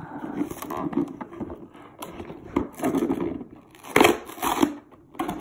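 A cardboard toy box being opened by hand: rustling, crinkling and tearing of the packaging, with a few sharp snaps, the loudest about four seconds in.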